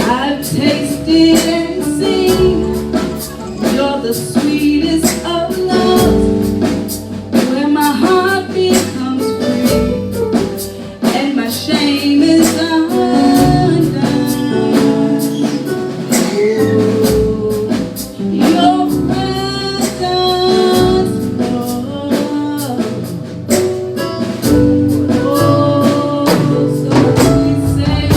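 Gospel worship music: voices singing over a band, with a steady percussive beat.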